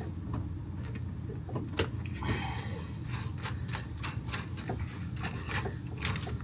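Scattered light clicks and taps of parts and hand tools being handled during hand work on the machine, over a steady low hum.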